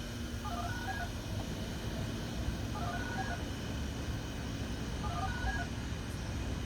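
Quick runs of short dual-tone (DTMF-style) beeps, three times about two seconds apart, coming over a radio: tone codes used to activate outdoor warning sirens. A low steady hum lies underneath.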